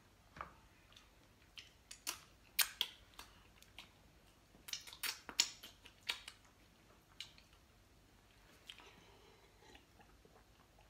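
Close-up eating sounds: chewing with a series of sharp clicks and smacks, in one cluster about two seconds in and another about five seconds in.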